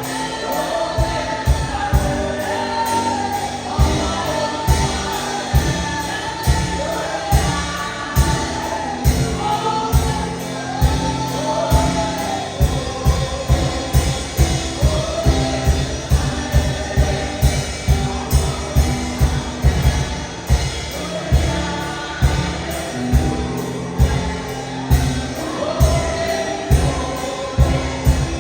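Gospel music: a choir or congregation singing with a steady drum beat.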